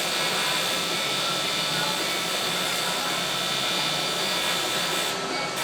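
Welding arc burning with a steady hiss and a faint high whine, breaking off briefly about five seconds in.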